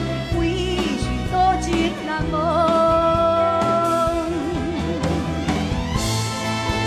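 A woman singing a slow ballad with a live symphony orchestra accompanying her. About two seconds in she holds one long note for about two seconds.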